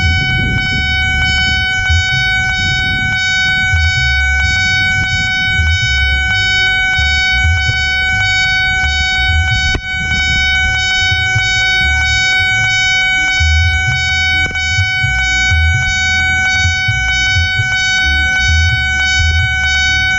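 Japanese-style Nippon Signal electronic level-crossing alarm sounding loud and without a break, warning that a train is coming with the barriers down.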